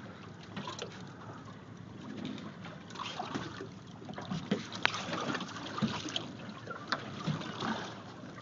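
Water lapping and sloshing against the side of a small boat, with scattered small knocks and clicks.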